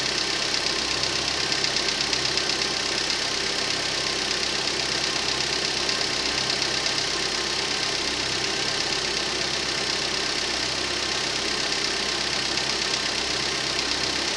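Rover 25's 1.4 K-series four-cylinder petrol engine idling steadily, with a fast, light ticking that the owner puts down to the hydraulic tappets. The idle has a slight misfire, which the owner traced to a faulty lambda (O2) sensor.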